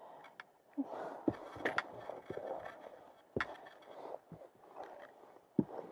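Footsteps and scuffing of a hiker climbing a rocky mountain trail: uneven knocks and scrapes with a few sharp clicks.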